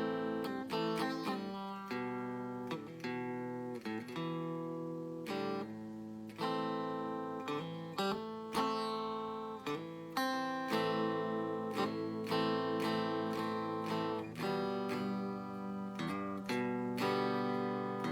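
Donner DST1 Strat-style electric guitar with a clean tone, played in chords. The chords are picked and strummed about once or twice a second, and each one rings out and decays.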